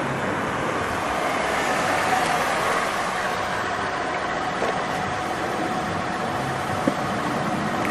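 Nissan sedan pulling up and idling at the curb, a steady engine hum, with a single short click about seven seconds in.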